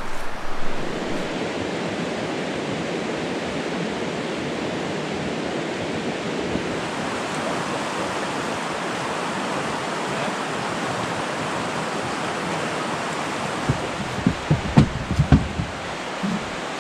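A river rushing steadily. A few short knocks and thumps come near the end.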